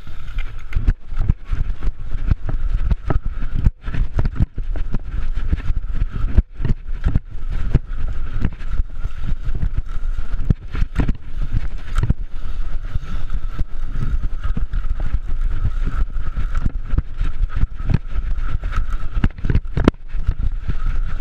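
BMX race bike ridden fast over a dirt track, heard from a bar-level camera: a steady low rumble of wind and tyres with frequent sharp knocks and rattles from the bike over the bumps.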